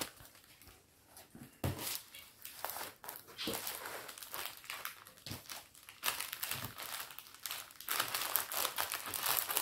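Crinkling and rustling of a diamond painting canvas and its plastic cover sheet being handled. It gets denser and louder from about six seconds in.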